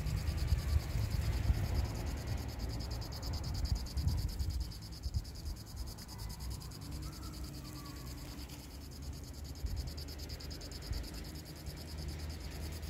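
Wind buffeting the microphone in uneven gusts over a steady, rapidly pulsing high insect buzz, like crickets.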